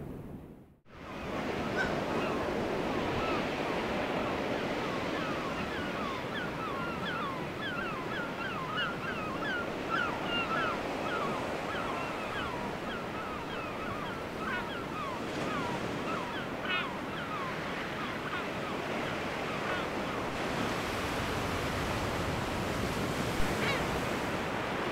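Seabird colony calling: many short, quick calls, densest in the first half, over a steady wash of surf and wind. The sound drops out briefly just under a second in, and there is a single sharp tap near the end.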